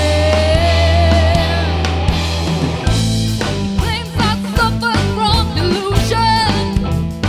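Live rock band with female vocals: a singer holds one long note over a sustained bass, then about three seconds in the band drops into a choppy rhythm with drums while the singing goes on with vibrato.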